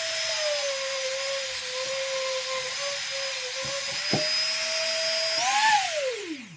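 Dremel rotary tool whining steadily as it polishes a pocketknife blade, its pitch sagging a little under load, with a click about four seconds in. Near the end the tool is switched off and winds down, its pitch falling quickly to a stop.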